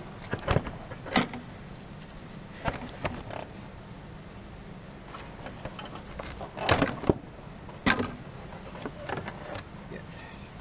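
Scattered clicks, knocks and light rattles of engine parts and connectors being handled and unclipped by hand, loudest in a cluster about seven seconds in, over a steady low hum.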